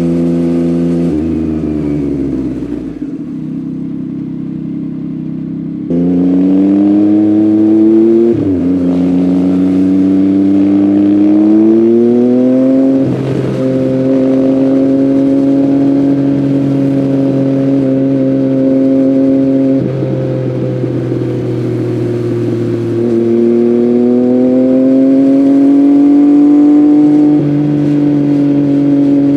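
Yamaha MT-09's three-cylinder engine through an Akrapovic full-system exhaust, under way. The revs fall about a second in and stay low for a few seconds. Then the engine pulls up in rising sweeps, with sudden drops at gear changes about eight and thirteen seconds in. It holds steady for a while, eases off around twenty seconds, and climbs again until another drop near the end.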